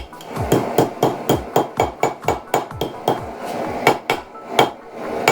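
Hand-forging hammer blows on a railroad-spike tong blank being shaped into slot-jaw tongs. It is a steady run of about three strikes a second, each with a short metallic ring.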